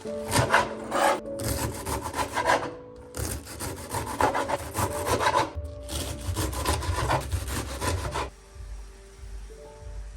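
Rough rubbing or scrubbing strokes in quick succession, with short pauses, stopping about eight seconds in.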